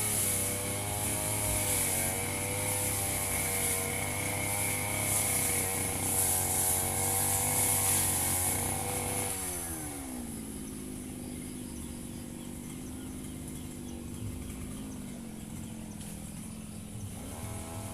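Firman FGB 528 two-stroke brush cutter engine running at high throttle, then dropping to idle about halfway through as the throttle is released, and starting to rev up again near the end.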